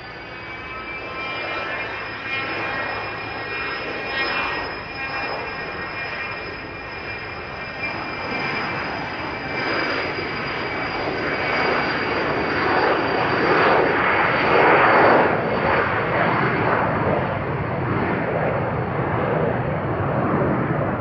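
Beechjet business jet passing, its twin turbofans running: a high engine whine that slowly falls in pitch, with a rush of engine noise that builds to its loudest about 15 seconds in, then eases slightly.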